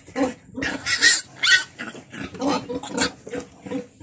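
Newborn piglets squealing and grunting while being handled: a quick run of short calls, with the shrillest squeals about a second in.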